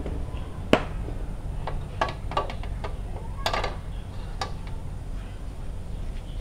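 Several light clicks and knocks of cookware handled around a wok on a portable gas stove, over a steady low rumble.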